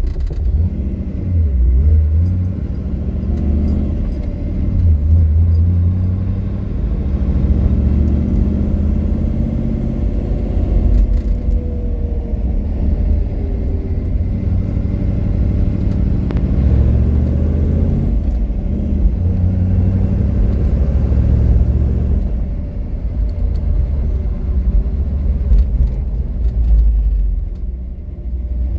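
1967 Mercury Cougar's V8, fed by Holley Sniper EFI throttle-body fuel injection, running as heard from inside the cabin. It gives a steady low rumble whose engine speed rises and falls between about 600 and 1,400 rpm.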